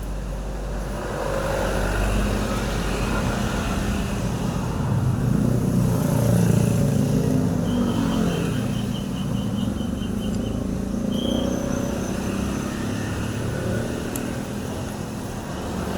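Two-stroke chainsaw engine running, picking up speed around the middle and then settling back to a steady run.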